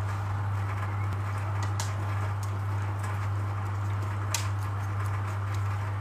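A steady low hum with a few light clicks, the sharpest about four seconds in.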